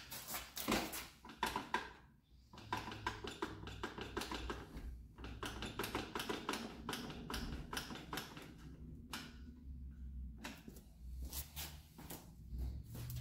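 Irregular clicks and knocks of a clamp being fitted and tightened to hold a plastic tail-light fender bracket against a motorcycle's plastic rear fender.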